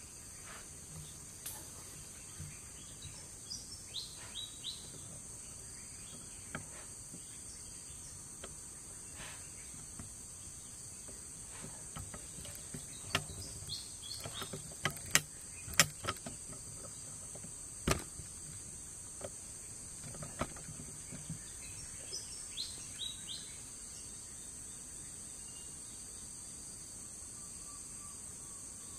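Insects keeping up a steady high-pitched drone in forest undergrowth, with a few short bird chirps. Scattered sharp clicks, loudest around the middle.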